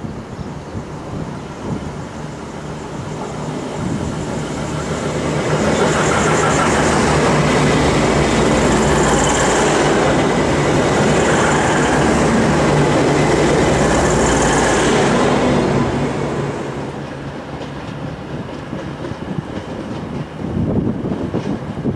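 V/Line VLocity diesel multiple unit passing close along the platform: a steady diesel engine drone with wheel and rail noise. It swells over the first six seconds, stays loud for about ten seconds, then fades away.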